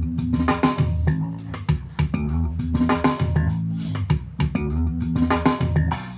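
A song with guitar, a repeating bass line and regular percussive hits, played through an XDOBO Vibe 50 W Bluetooth speaker.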